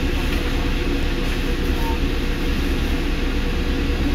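Steady low rumble of a moving bus heard from inside the cabin: engine hum and road noise.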